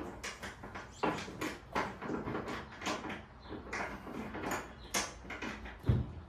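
Thin metal fender shims being stacked and slid into place at the upper rear mounting bolt of a 1968 Pontiac Firebird's front fender: irregular light clicks and scrapes of metal on metal, with a dull thump near the end.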